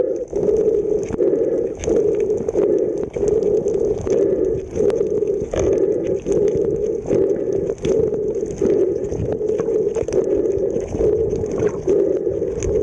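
Underwater ambience picked up by a camera in its housing: a steady hum that pulses about one and a half times a second, with faint scattered clicks.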